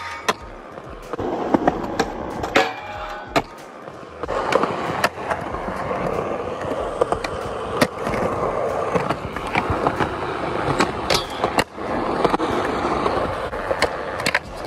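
Skateboard wheels rolling on concrete, with sharp clacks of a board popping and landing scattered through.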